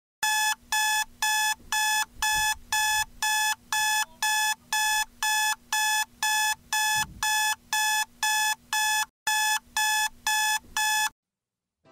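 Smartphone alarm beeping: a steady run of identical high electronic beeps, about two a second, with a short break near the end before it stops.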